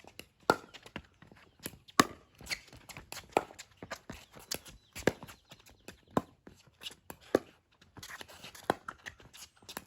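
Pickleball rally: paddles striking the hard plastic ball in a string of sharp pops, roughly one every second or so, with softer taps and footsteps on the court in between.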